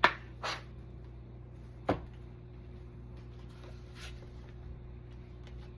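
A few light clicks and taps of oracle cards being handled and drawn from the deck, over a steady low hum.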